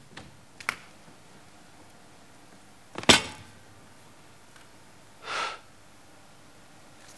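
A small click, then a sharp knock about three seconds in with a short ringing tail, and a short breathy rush a couple of seconds later.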